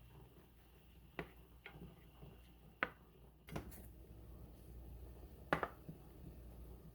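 Quiet room tone with about five faint, sharp clicks and taps, spaced a second or so apart.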